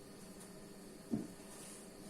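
A single soft, dull thump about a second in, over faint room tone with a low steady hum.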